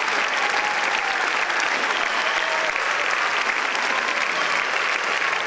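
Many people clapping together in steady, sustained applause.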